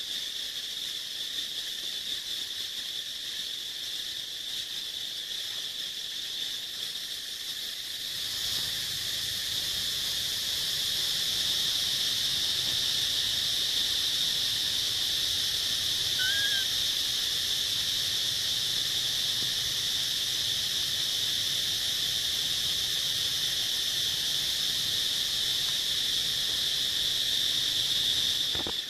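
Steady, high-pitched drone of an insect chorus, growing louder about eight seconds in, with one short chirp midway.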